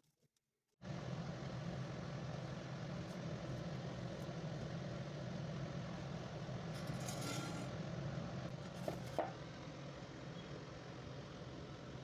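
Steady hum and hiss of cooking on a gas stove under a cast iron dosa tawa, starting about a second in, with a couple of brief scrapes or clicks about two-thirds of the way through.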